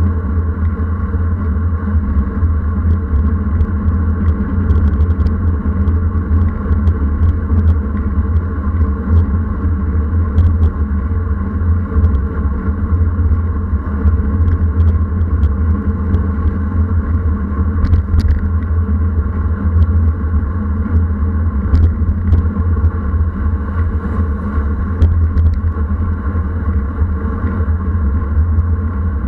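Wind buffeting a bike-mounted action camera's microphone while riding into strong headwinds, heard as a loud, steady low rumble mixed with road noise. Scattered light clicks and rattles come through it.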